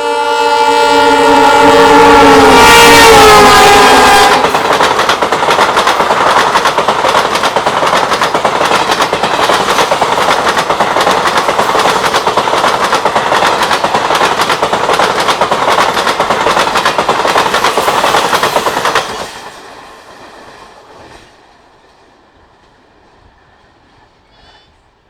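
WDP-4D diesel locomotive passing at speed with its horn sounding, the horn falling in pitch as the engine goes by about three to four seconds in. The passenger coaches then rattle past with a fast, steady clatter of wheels over the rail joints, which cuts off suddenly near the end as the last coach clears.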